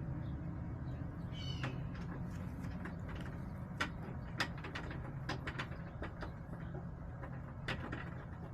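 Backyard hens: one short call from a hen about a second and a half in, with scattered sharp taps and clicks and a steady low hum throughout.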